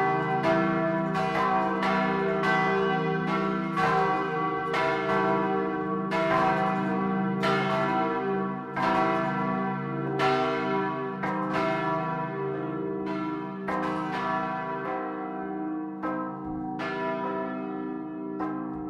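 Several large church bells swinging and ringing, heard from inside the belfry, one bell hand-rung by rope. Clapper strikes come every half-second to second over an overlapping, sustained hum. Near the end the strikes grow sparser as the ringing slows.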